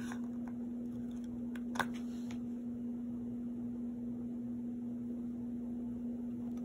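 A steady low hum, with faint clicks and taps of tweezers lifting and pressing sticker flags on paper. One sharper click comes about two seconds in.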